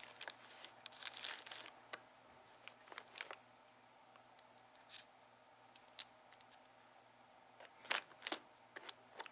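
Soft crinkling and rustling of plastic packaging bags handled by hand. The crinkles come thick at first, thin out to a quiet stretch in the middle, and return as a couple of sharper crinkles near the end.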